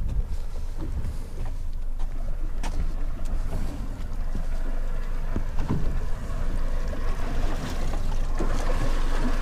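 Wind buffeting the microphone over water sloshing against the hull of a small fibreglass boat sitting stopped on open sea, with a steady low rumble and a few light knocks.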